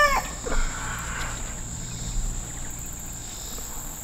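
Steady high-pitched insect chorus, one unbroken tone throughout, with the end of a rooster's crow trailing off right at the start.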